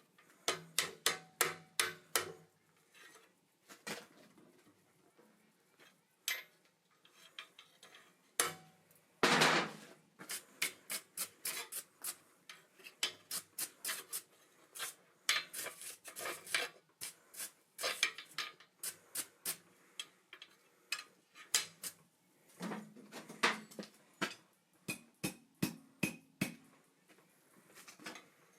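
Hand hammer striking hot steel on an anvil in runs of quick, even blows, about three a second, with short pauses between the runs.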